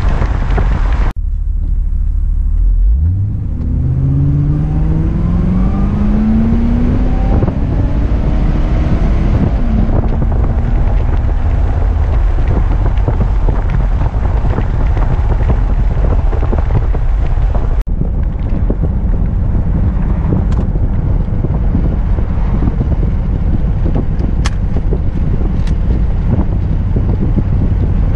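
1978 Corvette's small-block V8 heard from inside the cabin: the engine note rises steadily as the car accelerates a few seconds in, then settles into steady cruising under road and wind noise.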